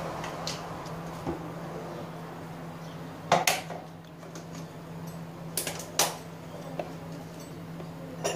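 Sour cherries being pitted with a plastic drinking straw over a bowl: sharp clicks as pits drop onto the bowl, in two pairs about three and a half and six seconds in, with a few fainter ticks. A low steady hum runs underneath.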